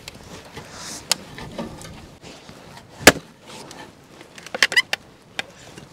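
Splitting firewood with a hatchet on a chopping block: one loud sharp wooden crack of the blade striking the wood, then a quick run of lighter wooden knocks and clatters about a second and a half later.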